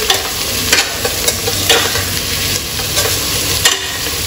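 Onions, green chillies, mint and coriander sizzling in hot oil and ghee while being stirred, with irregular scrapes and clinks of the stirring utensil against the pan, the sharpest near the end.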